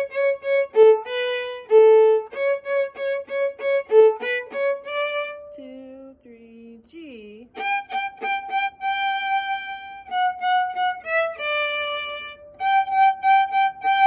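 Solo violin playing a bright, rhythmic melody of quick short repeated notes. After a brief quieter dip about six seconds in, it moves into longer held notes.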